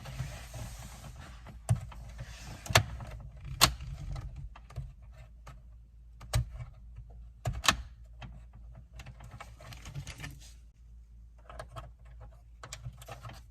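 Plastic clicks and handling of a Mercedes-Benz overhead roof-light housing as a bulb socket is twisted out and the bulb changed. A handful of sharp clicks stand out, with rustling between them.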